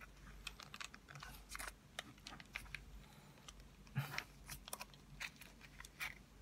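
Plastic film lid of a packaged instant cooked-rice tray being peeled back a little by hand, crinkling in faint, irregular small crackles and clicks.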